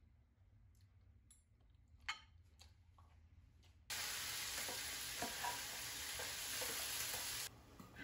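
A few light clicks of a metal fork against a glass bowl, then about four seconds in, ground meat starts sizzling loudly in a frying pan; the sizzle stops abruptly about three and a half seconds later.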